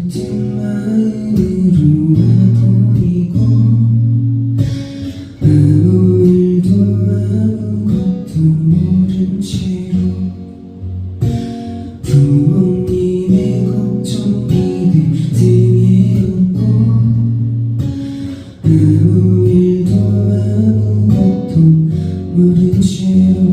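Acoustic guitar strummed in a repeating chord pattern, the phrase starting over about every six seconds.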